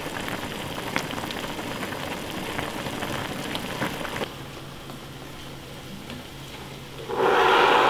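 Pot of skewered fish cakes (oden) simmering on a burner, the broth bubbling with a dense crackle and scattered pops for about four seconds. About seven seconds in, cola is poured from a bottle into a glass mug with a loud fizzing hiss.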